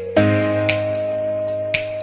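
Background music: a held note over a low bass, with light percussion ticking at a steady beat.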